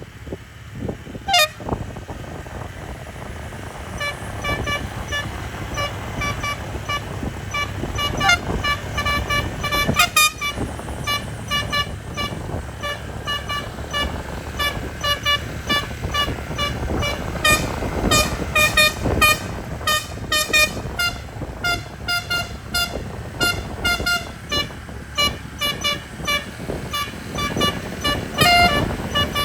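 Multi-trumpet bus telolet horn (18 trumpets, 18 notes) playing a fast melody of short notes at changing pitches, over a low rumble. The run of notes starts about four seconds in and keeps going.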